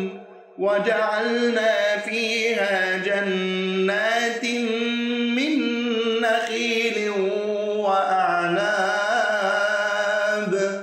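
A man reciting the Quran in melodic tajweed style, holding long ornamented notes. He resumes after a brief breath pause about half a second in, and pauses again at the end.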